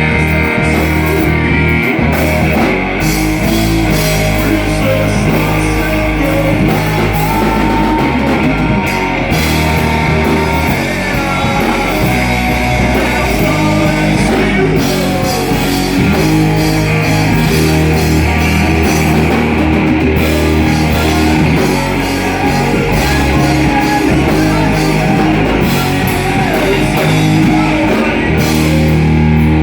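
Live rock band playing a heavy song with distorted electric guitar, bass and drums, loud and unbroken.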